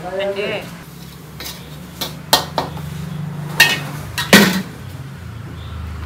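Iron wok and steel plate knocking and scraping together as food is tipped out onto the plate: several sharp metallic clanks, the loudest about four and a half seconds in.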